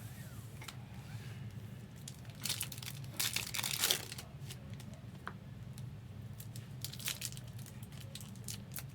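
Foil trading-card pack wrappers crinkling and tearing as packs are handled and opened. The crinkling is loudest from about two and a half to four seconds in, with scattered light clicks after, over a steady low hum.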